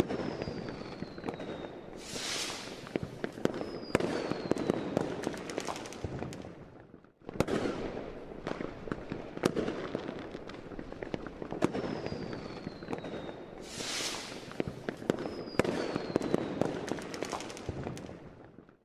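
Fireworks: a dense crackle of firecrackers and sharp bangs, with a couple of falling whistles. It drops away briefly about seven seconds in, then the same crackling and whistles come again, and it fades near the end.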